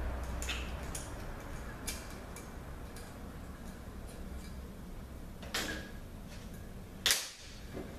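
Small metal transmission parts being handled as a valve is worked out of the pump: scattered light clicks and taps, with two louder knocks in the second half, about a second and a half apart.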